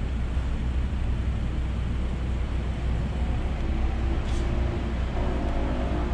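Steady low rumble of an idling minivan engine close by, the Kia Sedona waiting just ahead, over city traffic. Faint music tones come in about halfway through.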